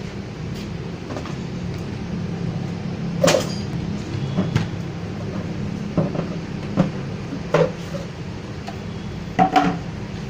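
A steady low hum with about six sharp knocks and clatters at irregular intervals.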